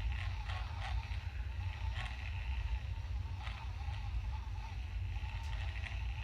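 Vanity Planet Glow Spin facial cleansing brush running, its motor humming steadily while the spinning brush head scrubs across wet skin with facial scrub.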